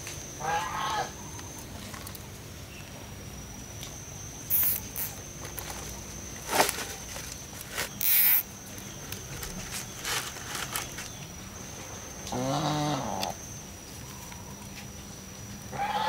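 A farm animal calling twice: a short high call near the start and a longer, lower, wavering call about three quarters of the way through. A few sharp knocks come in between.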